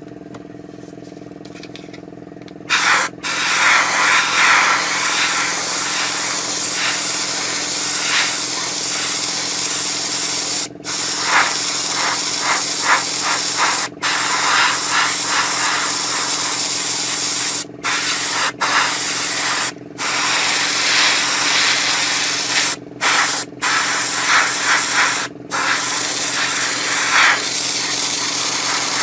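Airbrush spraying paint in long hissing passes from about three seconds in, broken by eight short pauses as the trigger is let off, over a steady motor hum from the air compressor. The spray is a bit spitty, which the painter puts down to a small blockage in the nozzle.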